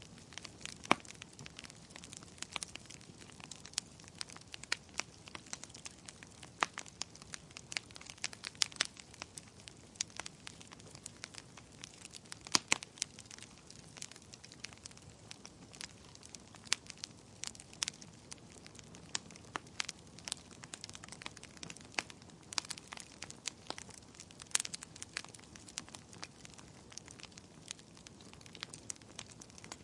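Wood bonfire crackling: irregular sharp pops and snaps, a few much louder than the rest, over a soft steady hiss of burning.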